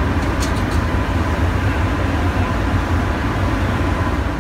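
Steady low rumble of harbour noise beside the berthing ship, with a few faint clicks about half a second in.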